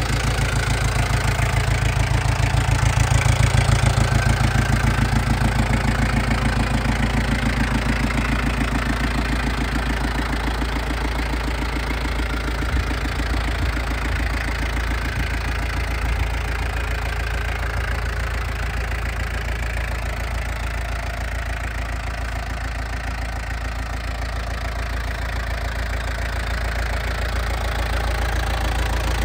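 Yanmar FX32D compact tractor's 32 hp four-cylinder diesel engine idling steadily.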